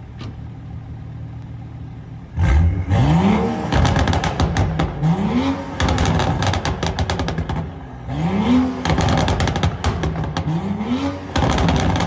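A tuned BMW F30 335i's turbocharged 3.0-litre inline-six idles, then is revved four times. Each rev rises and falls in pitch, and the exhaust crackles and pops in rapid strings on the overrun from its MHD/JB4 tune.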